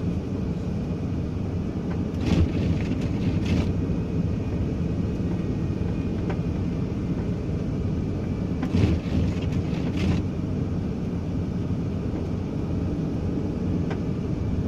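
Steady low rumble of a vehicle running, engine and road noise, broken by a few short knocks about two, three and a half, nine and ten seconds in.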